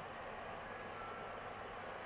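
Steady harbour background noise: a low hum under an even hiss, with faint short high beeps twice.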